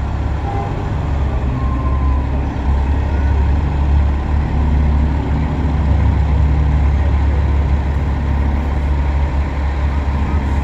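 Heavy semi truck diesel engines running with a deep, steady rumble as trucks drive past in a convoy.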